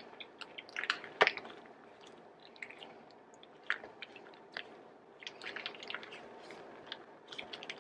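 Faint, scattered soft squishes and rustles of a flour tortilla being rolled tightly by hand around a moist filling of cream cheese, lettuce, chicken and tomato.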